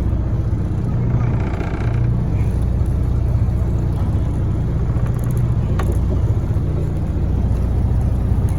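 A fishing boat's engine running steadily: a low, even drone.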